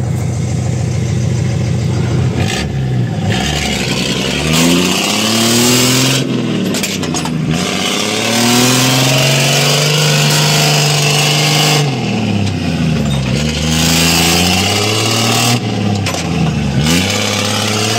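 6x6 cane truck's engine running hard, its pitch rising and falling over and over after a steady first couple of seconds, as the truck strains under load with its wheels spinning and throwing up cane trash and mud.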